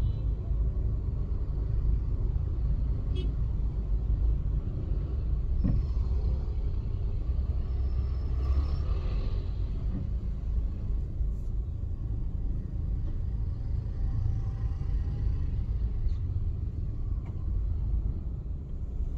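A car driving in city traffic: a steady low rumble of engine and road noise, with a few faint ticks and thin tones over it.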